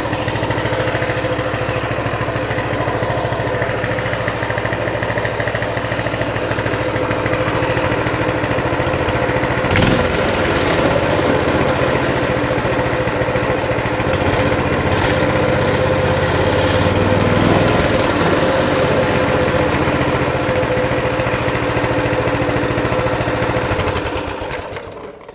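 Coleman CT200 mini bike's single-cylinder engine idling steadily at about 1600 rpm with the throttle return spring removed. At this idle the centrifugal clutch stays disengaged. A sharp click sounds about ten seconds in, and the engine shuts off near the end.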